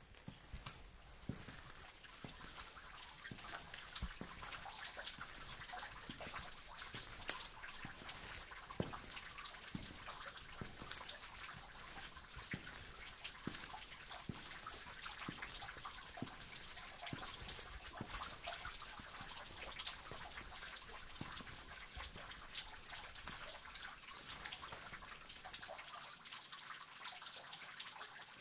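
Water dripping in a cave: many irregular drops falling over a steady trickle of running water.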